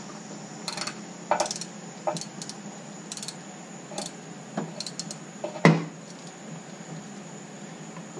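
Irregular metal-on-metal clinks and clanks from hand tools, bolts and an engine hoist while an engine is being pulled, with one heavier clank a little before six seconds in.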